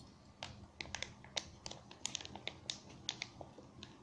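Thin plastic bag crinkling and crackling in the hands as it is squeezed and tipped over a steel bowl: faint, irregular sharp clicks.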